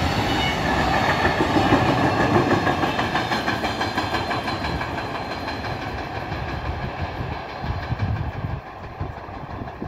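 Container freight train's wagons rolling along the track, with wheels clicking over the rail joints. The noise is loudest in the first couple of seconds and fades steadily as the end of the train moves away.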